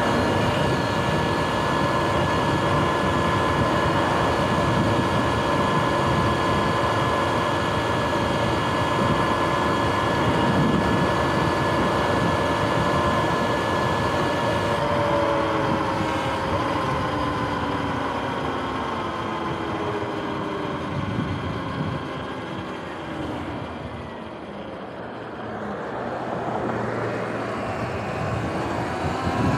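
Sur-Ron X electric dirt bike under way, its motor and belt drive giving a steady high whine of several tones, with wind buffeting the microphone. Past halfway the whine falls in pitch as the bike slows, then rises again near the end as it speeds back up.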